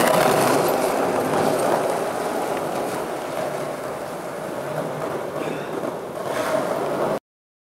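Skateboard wheels rolling over jointed concrete slabs, a steady rumble that swells again near the end and then cuts off suddenly.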